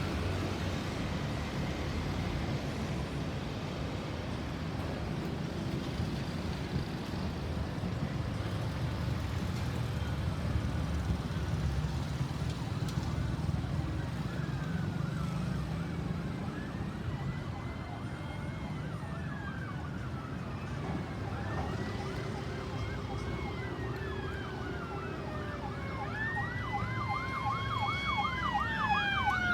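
Steady road-traffic rumble. From about halfway in, emergency-vehicle sirens approach, slow wails rising and falling and growing louder. Near the end several sirens overlap, one switching to a fast yelp.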